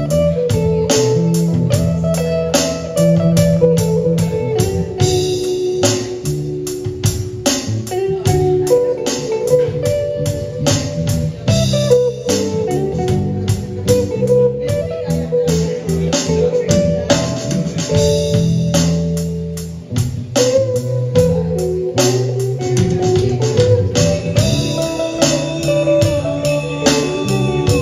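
Live instrumental band music: an electric guitar plays a moving melodic line over electric bass and a drum kit keeping a steady beat.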